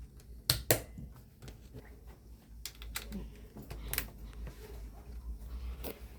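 Snap Circuits parts clicking as they are handled on the plastic base grid: a handful of scattered sharp clicks, the loudest about half a second in and about four seconds in.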